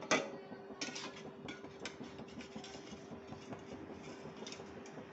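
A sharp knock, then light irregular ticking and crackling from beaten egg cooking in a pan on a gas stove, over a steady faint hum.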